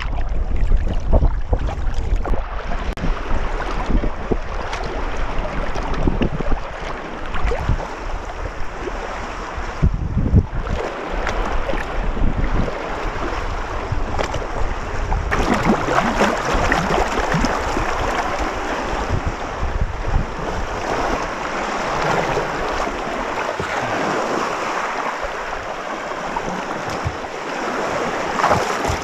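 Small waves lapping and washing over shallow water and a cobble beach as a sea kayak glides in close to shore, with wind buffeting the microphone in the first half. About halfway through the water wash grows brighter and louder.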